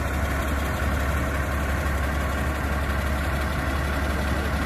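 Heavy diesel engine idling steadily, a constant low hum with no change in speed.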